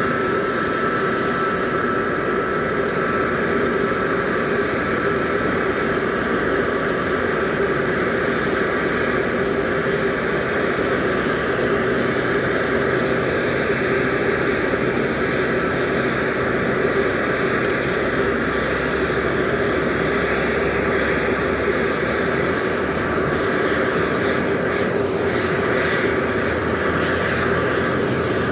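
Airbus A320 jet engine running with a steady whine over a broad rush. A thin, higher tone fades out about four seconds in.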